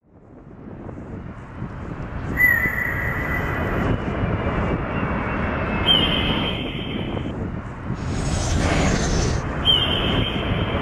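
Three long, high screeches that dip slightly in pitch at their start and then hold, coming about two and a half, six and ten seconds in, over a loud, steady rushing roar that fades in at the start.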